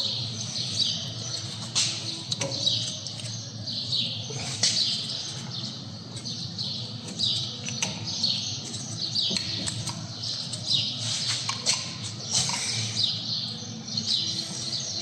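Small birds chirping over and over in short, falling chirps, with a few sharp clicks and a steady low hum underneath.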